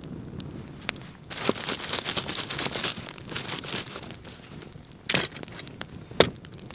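Wood campfire crackling with sharp pops. From about a second in come a few seconds of dense crunching and rustling as a gloved hand shifts the burning logs. There are two loud sharp snaps near the end.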